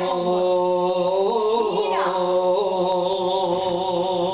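A man singing unaccompanied, drawing out long held notes of a song in Bosnian-Croatian-Serbian, his voice sliding to new pitches between the held notes.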